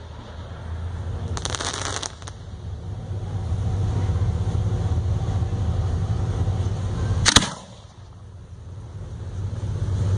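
Ground-launched fireworks: a hissing burst about a second and a half in, then a single sharp launch bang about seven seconds in, over a steady low rumble.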